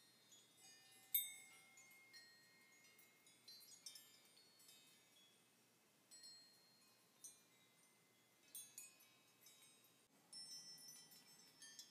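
Faint, irregular clinking of hanging metal hardware (washers, rings, gears and chain) knocking together, each light tink ringing briefly like a wind chime. The loudest clink comes about a second in, and the clinks grow denser near the end.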